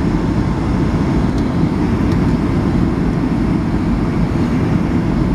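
Steady low roar of a Boeing 757's engines and rushing air, heard inside the passenger cabin on final approach.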